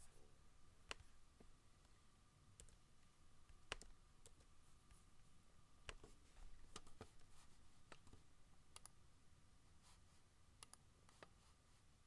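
Faint computer keyboard typing and mouse clicks: scattered single clicks, with small clusters about six seconds in and near the end, over a faint steady tone.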